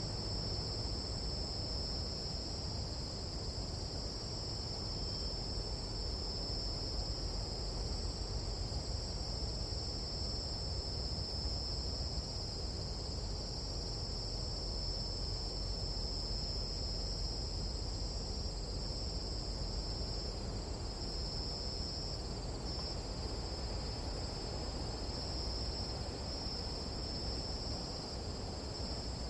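Tropical night insect chorus: a steady, unbroken high-pitched trill, with a low rumbling noise underneath.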